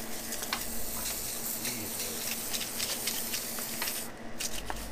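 Aerosol cleaner hissing steadily as it is sprayed onto greasy engine parts, cutting off sharply about four seconds in, with a few light clicks of tools and parts.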